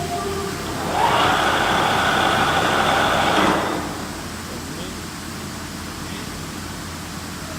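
Lagun FBF 1800 milling machine spindle spinning up with a rising whine about a second in, running steadily at speed for a couple of seconds, then winding down.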